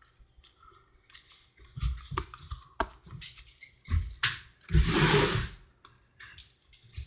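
Slime being worked and squished by hand, with wet squelching, clicks and small pops, and one longer, louder squelch about five seconds in.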